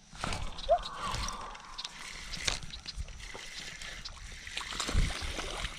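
Water sloshing and splashing, with scattered sharp clicks and knocks.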